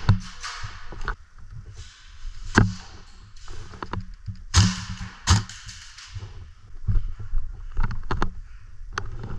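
Airsoft guns firing in scattered, irregular sharp snaps, with rustling movement in between.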